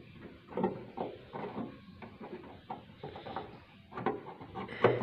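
Hands fitting a new rubber stop into its seat on a car's bonnet fitting: a run of irregular clicks, rubs and knocks, busiest near the end.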